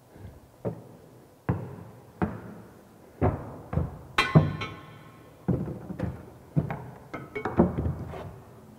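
Irregular knocks and thuds, about a dozen in all, with a brief rattle about four seconds in, as a long pipe is handled, stood up and fitted against a partition wall.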